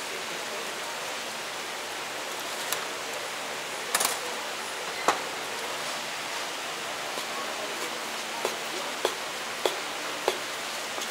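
Kitchen knife cutting glutinous rice sausage on a bamboo cutting board: a few scattered knocks, then four evenly spaced chops near the end, over a steady background hiss.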